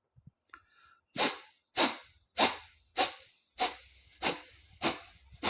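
Forceful exhalations through one nostril, the other held shut with the thumb, in kapalbhati breathing: short sharp puffs of air a little under two a second, seven in a row, starting about a second in.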